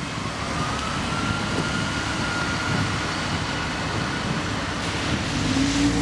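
Cars running on a wet road: a steady hiss of tyres and traffic with low engine sound underneath, and one engine growing louder near the end.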